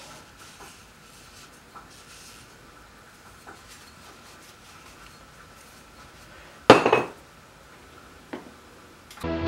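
Faint handling noise, then about two-thirds of the way through a short, loud clatter of metal against metal, as of small parts in a metal pan. A lighter knock follows just over a second later, and music starts right at the end.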